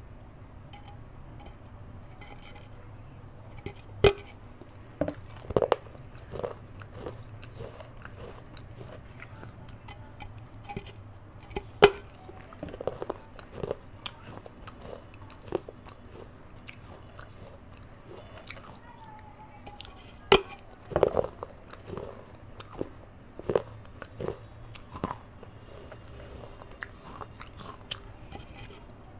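Clay pot (matka) rim being bitten and chewed close to the microphone: sharp crunching cracks at irregular intervals every few seconds, with quieter chewing clicks between.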